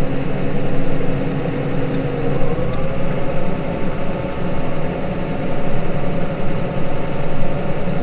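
Case Maxxum 150 tractor's diesel engine running steadily under load while pulling a four-furrow Kverneland plough, heard from inside the cab. Its note shifts slightly about two and a half seconds in.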